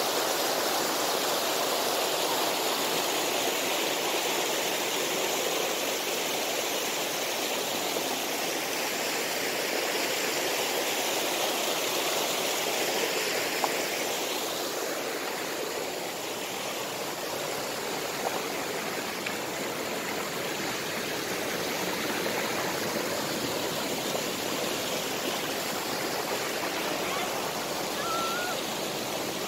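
Mountain stream rushing over boulders in small cascades: a steady, unbroken water noise.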